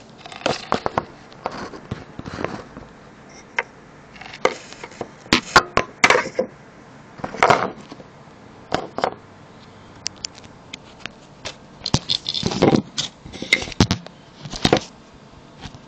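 Irregular clicks, knocks and scrapes of objects being handled and set in place on a workbench, in scattered clusters.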